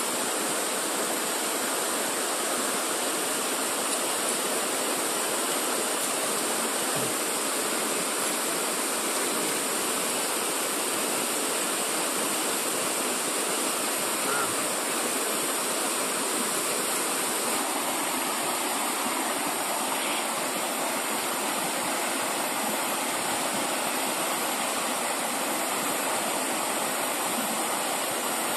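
Steady rush of river water running over rapids.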